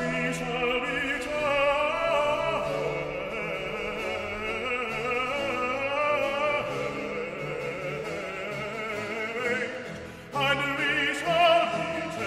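Background classical music: operatic singing with vibrato over an orchestra. The music dips briefly about ten seconds in, then comes back in full.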